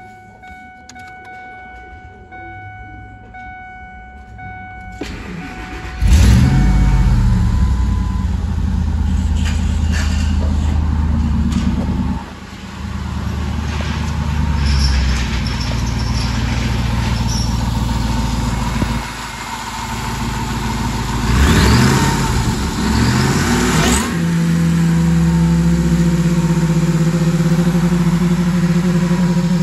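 Ford F-150 SVT Lightning's supercharged 5.4-litre V8 starting about six seconds in with a flare of revs, then running. It is revved briefly a few times about twenty-one seconds in and then settles into a steady idle.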